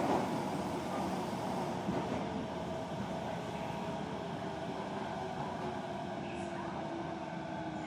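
Osaka Metro 66 series subway train heard from inside the car, running through the tunnel and slowing. The rumble of the wheels on the rails eases off and a faint motor whine drops slowly in pitch.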